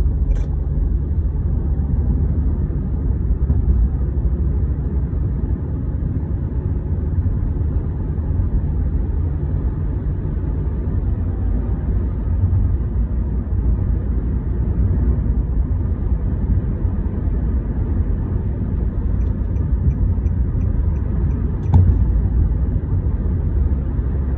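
Steady low rumble of a car driving at highway speed, heard from inside the cabin: engine and tyre noise on the road. A single short click near the end.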